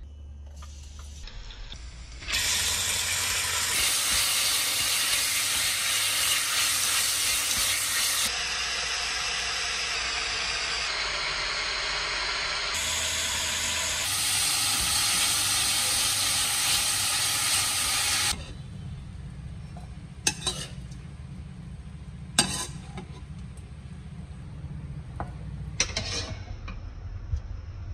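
Veal slices sizzling in hot oil in a pot as they are stirred, a loud steady hiss that stops suddenly about 18 seconds in. After it, three sharp clinks of a metal spoon against the pot over a low hum.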